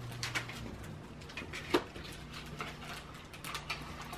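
Small retail packaging being handled and opened: scattered rustles and light clicks of cardboard and plastic, with one sharper click a little under two seconds in.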